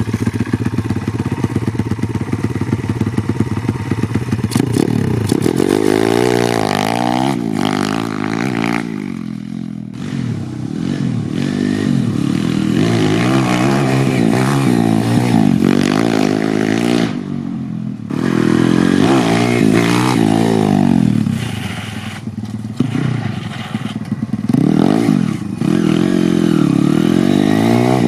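YCF150 pit bike's 150cc four-stroke single-cylinder engine, fitted with a Nibbi 24mm carburetor, running steadily at first and then revving up and falling back again and again as the bike is ridden hard. The owner says it runs pretty good on the new carburetor.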